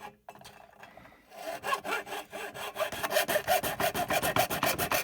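A saw cutting through a plastic router casing in rapid back-and-forth strokes. The sawing starts up after a short pause about a second and a half in, and settles into a steady, even rhythm from about three seconds.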